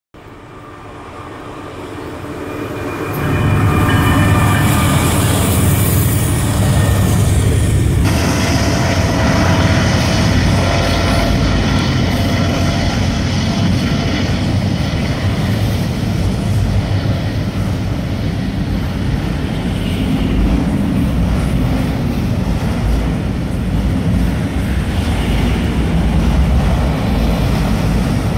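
Freight train of auto-rack cars rolling past close by: a steady, dense rumble and clatter of wheels on the rails, building up over the first few seconds and then holding at full strength.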